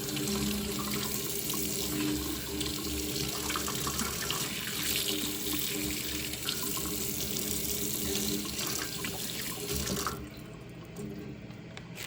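Kitchen faucet running into a sink as whole catfish are rinsed clean under it; the water shuts off abruptly about ten seconds in.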